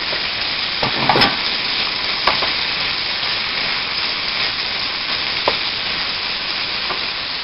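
Ground chicken sizzling in hot olive oil as it browns in a pan, a steady frying hiss, with a few short scrapes of the utensil stirring it, the loudest about a second in.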